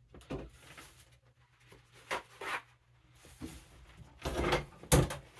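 A series of separate knocks and clunks from objects being handled and set down on a hard surface, with quiet gaps between them and the loudest knocks near the end.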